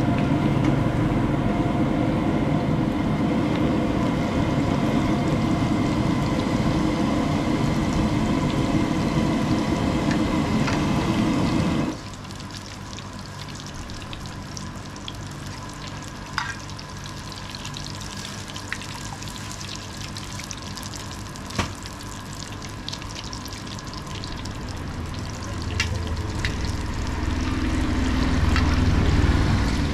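A loud steady rumble with a hum fills the first twelve seconds and cuts off abruptly. Then samosas deep-frying in a karahi of hot oil give a steady fizzing sizzle with a few sharp clicks. A low rumble builds near the end.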